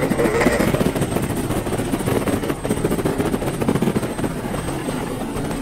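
Helicopter rotors chopping steadily in rapid pulses, a sound effect for several cartoon helicopters in flight.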